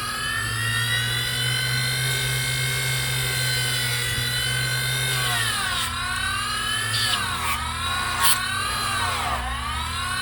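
Small 3-inch bench grinder's electric motor running with a high whine, steady at first, then slowing and speeding back up several times in the second half.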